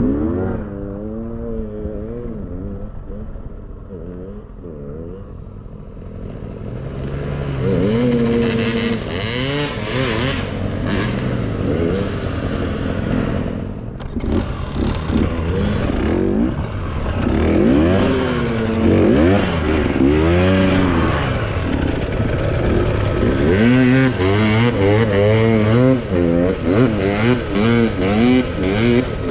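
Enduro dirt bike engine revving up and down over and over as it is ridden off-road. It is softer for the first few seconds, then a clattering hiss joins it from about seven seconds in.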